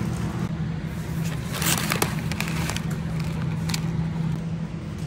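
Steady low hum of store ambience, with crackling from packaging being handled about one and a half to two and a half seconds in and once more near four seconds, as a plastic cereal pouch is picked up.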